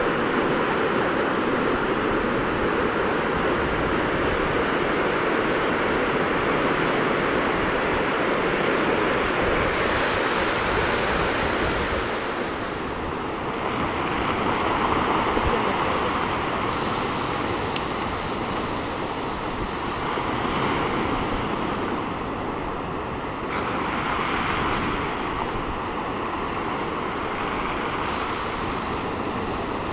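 Ocean surf breaking and washing over a rocky shore, a continuous rush with some wind on the microphone. About twelve seconds in the sound changes and turns a little quieter, with slow swells rising and falling.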